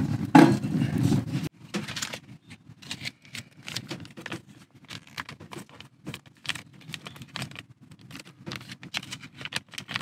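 A plastic snack bag crinkling and rustling as it is handled and its contents tipped out, a quick run of short crackles. Near the start, a knock as the cast-iron skillet is set on the steel stove top.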